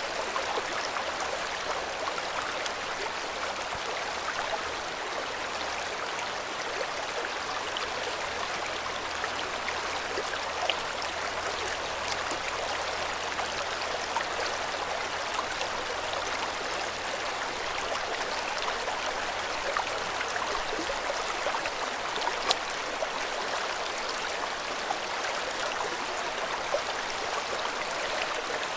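River water flowing steadily over stones, an even rushing babble with a few brief sharper splashes.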